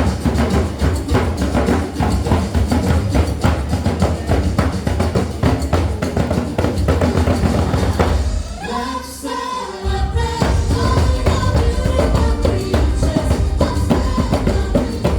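Upbeat pop music with a heavy drum beat and deep bass, and some singing. The bass and drums drop out for about a second and a half partway through, then the beat comes back in.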